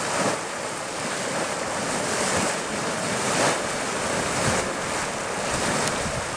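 Churning Cauldron hot spring churning and splashing, a rushing, surging water noise that swells and falls, with wind on the microphone.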